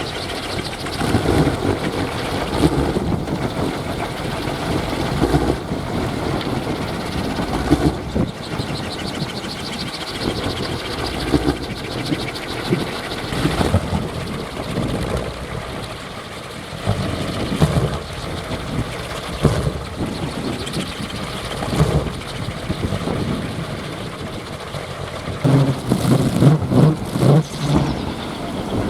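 Kolecer, a large teak-wood wind propeller on a pole, whirring loudly in strong wind, its engine-like drone swelling and fading with the gusts.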